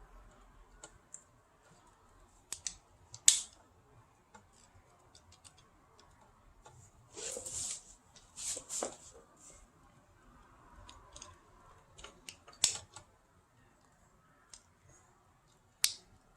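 Hands working on a tower fan's plastic parts: scattered sharp clicks and taps, the loudest about three seconds in, and a brief scraping rustle in the middle.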